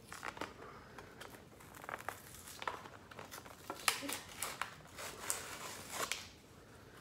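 Hot Wheels packaging being handled: irregular crinkling of plastic and cardboard with scattered light clicks and taps.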